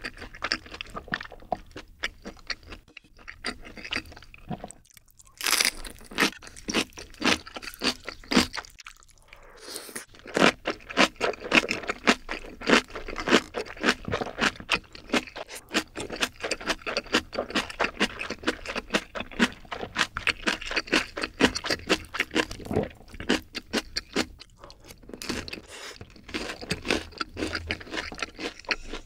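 Close-miked ASMR eating: crunchy, wet chewing of sauced fried chicken and kimchi. A steady run of crackles with a brief pause near nine seconds, louder after.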